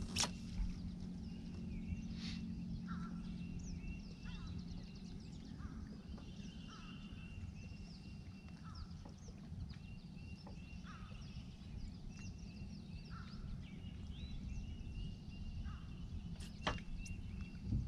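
Birds singing: a series of short whistled notes and falling chirps repeated every second or so, over a low steady rumble. A couple of sharp clicks stand out, near the start and near the end.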